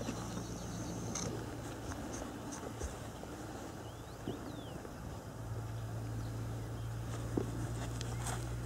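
Quiet open-air background: a steady low hum that grows louder about halfway through, a few faint high chirps, and a couple of short soft knocks near the end.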